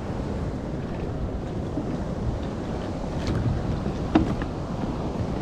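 Wind buffeting the microphone over choppy sea, with a steady rumbling wash of water around a kayak. A single sharp knock about four seconds in.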